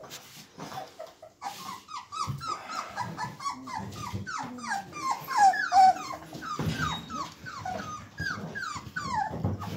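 A litter of four-week-old puppies whining and yipping together: many short, high calls, each falling in pitch, overlapping several to a second, loudest a little past the middle.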